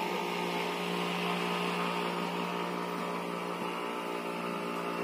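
A motor running steadily, giving a constant low hum.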